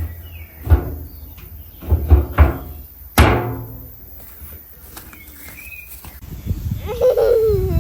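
Four sharp knocks, each ringing briefly, in the first half. Near the end comes a wavering, falling whine from an animal.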